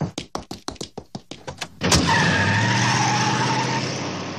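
Quick running footsteps, about seven a second, then a sharp knock. A car then speeds away with its tyres squealing and fades out.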